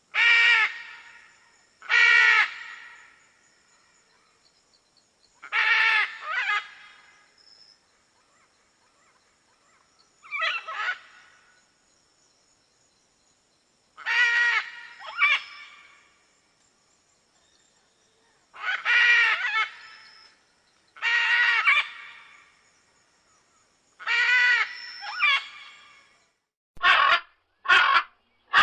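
Macaw giving loud, harsh squawks, singly or in pairs every few seconds, with a quicker run of sharper calls near the end.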